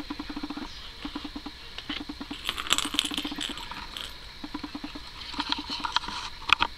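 Hard plastic ball rattling and clicking as it rolls around the track of a circular Crazy Circle-style cat toy. The clicks come in two flurries, one a few seconds in and one near the end.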